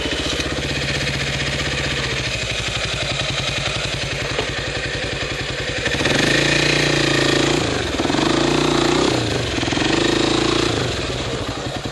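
Dirt bike engine chugging at low revs with a fast, even pulse. About halfway through the rider gives it three short bursts of throttle, each rev rising and falling, then another near the end.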